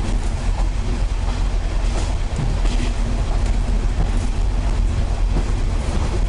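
Steady low rumble of a KiHa 40/47-series diesel railcar, heard inside its passenger cabin.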